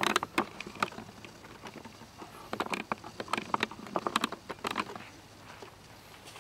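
Footsteps on a gravel path: irregular light crunching steps in two bursts, a few in the first second and a busier run in the middle.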